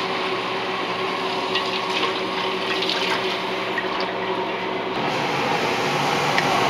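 Kitchen tap running into a stainless steel sink, the water splashing as a piece of raw meat is rinsed under it, with a plastic bag crinkling. The sound changes about five seconds in.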